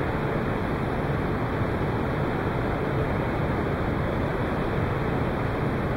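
Steady, even background noise of the playing hall: room tone with no ball strikes or other distinct sounds.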